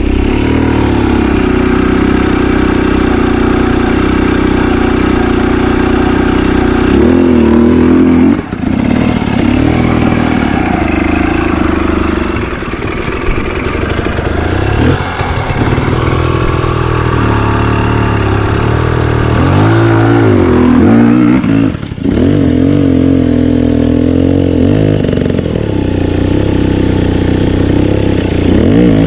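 Dirt bike engines on a rocky hard-enduro climb. An engine idles steadily at first. From about seven seconds in, a bike revs hard with the pitch rising and falling unevenly as it claws up the rocks, cutting out briefly twice.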